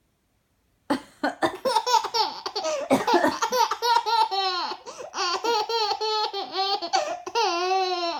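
Baby laughing in long runs of high-pitched giggles and squeals, starting about a second in after a short silence.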